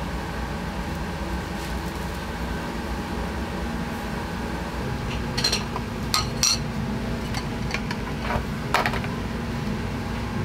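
Small ceramic plates clinking and clattering against each other and a metal tray with a wire grill basket, several sharp clinks from about halfway in, over a steady low hum.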